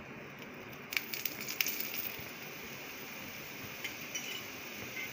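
Cooking oil added onto a stuffed paratha on a hot tawa, starting to sizzle about a second in with a steady hiss, with a few sharp clinks at the start of the pour.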